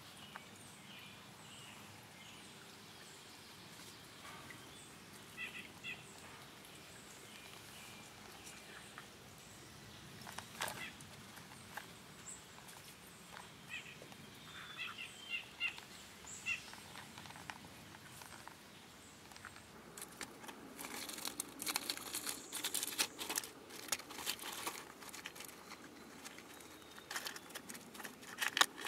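Faint steady outdoor hiss with scattered clusters of short high chirps; about twenty seconds in, a dense run of crackling and crunching clicks begins, a chipmunk rummaging among peanut shells inside a small wooden house.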